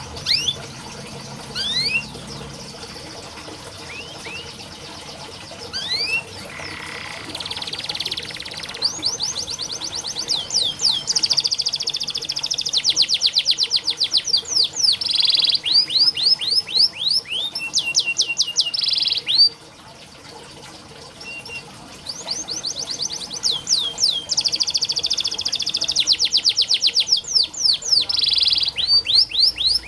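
Domestic canary singing: scattered quick rising chirps at first, then long, very fast trills (rolls), broken by a short pause about two-thirds of the way through.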